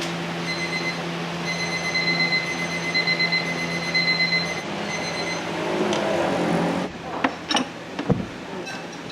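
A steady rushing roar with a low hum and a faint high tone that pulses about three times a second midway, typical of restaurant kitchen equipment running. It cuts off suddenly about seven seconds in, and three or four sharp metallic clanks follow.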